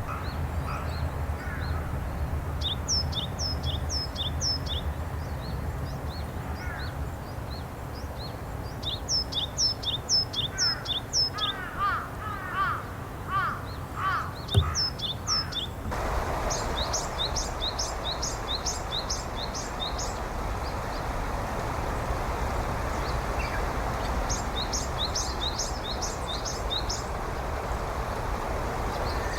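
Japanese tit singing its 'tsu-pee' song: a two-note phrase, high then lower, repeated quickly several times in each of five runs with pauses between. Some lower, quicker calls come in the middle, and the background hiss gets louder about halfway through.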